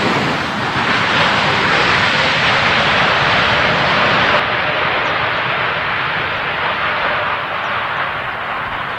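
Jet airliner passing close on its landing approach. The engine noise swells suddenly at the start, holds loudest for about four seconds, then slowly fades.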